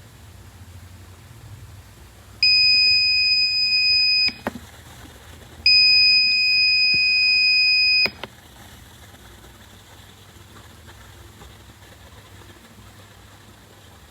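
Buzzer of a DIY laser tripwire alarm circuit sounding a loud, steady, high-pitched tone twice, each for about two seconds, each cut off with a click: the alarm set off when the laser beam to the light sensor is broken.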